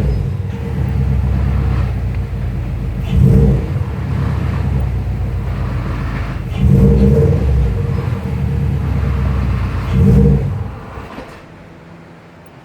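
2002 Subaru WRX's turbocharged flat-four running, with the clutch rattle that comes when the clutch pedal is pressed, swelling louder every three to four seconds and fading out near the end. The rattle turned out to come from a clutch pedal out of adjustment, not the throwout bearing that shops blamed.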